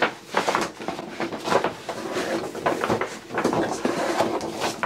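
Stiff paper shopping bag rustling and crinkling as a cardboard gift box is drawn up out of it: a run of irregular crackles and scrapes.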